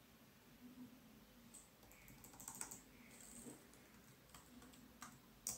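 Faint computer keyboard keystrokes: a few scattered taps, with a sharper click near the end.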